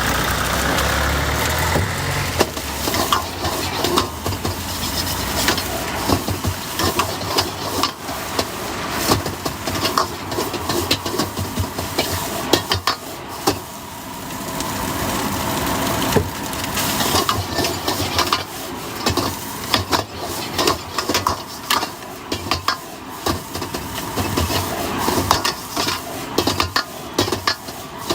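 Busy street-food stall ambience: repeated clatter and knocking of dishes and utensils over passing traffic, with a low vehicle rumble in the first couple of seconds.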